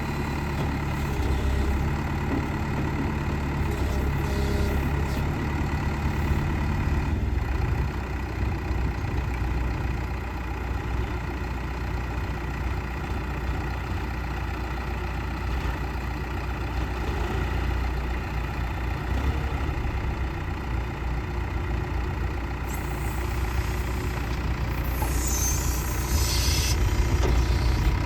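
Backhoe loader engine running steadily, its note shifting lower about a quarter of the way through, with a brief high hiss near the end.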